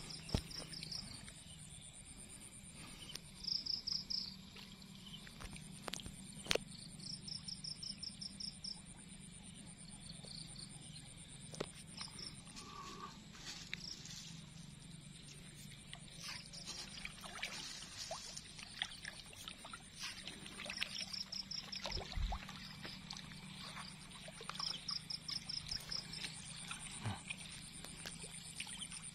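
Evening chorus of insects and frogs at a rice-paddy pond: a high, steady insect trill, short bursts of rapid chirping every few seconds, and a low steady drone of calling frogs. Scattered faint clicks and rustles are heard throughout.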